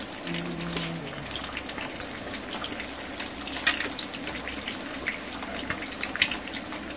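Eggs frying in hot oil in a pan: a steady sizzle with scattered sharp crackles and pops, the loudest a little past halfway through and again near the end.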